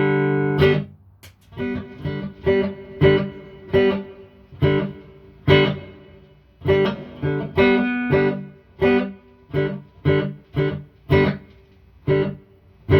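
Electric guitar played through a valve amp with a reverb pedal in front: a slow phrase of picked notes and chords, each ringing out and fading in the reverb. It is the pedal's reverb standing in for the amp's own spring reverb, with the amp quiet underneath.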